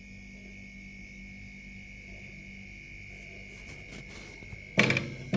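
Refrigerator compressor running with a steady low hum and a thin high whine while refrigerant is slowly charged into it. Near the end, loud music with drums cuts in.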